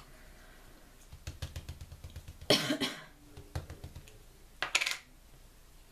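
Quick soft taps of a small dauber dabbing paint onto a plastic sheet, broken by two louder scratchy rustles, the first about two and a half seconds in and the second near the end.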